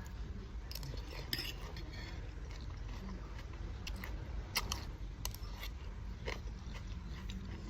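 Someone eating noodles: a few scattered sharp clicks, likely utensils against the bowl, with eating mouth sounds over a steady low hum.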